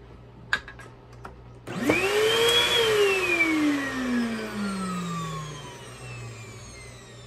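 Eureka Multi-Cyclonic Pet upright vacuum switched on for a brief test run. A few clicks, then the motor whines up to speed in under a second, is cut off at once and winds down with a long falling whine lasting about three seconds. The owner judges that the motor doesn't sound horrible but sounds like it has been under a lot of stress, and thinks the machine is severely clogged.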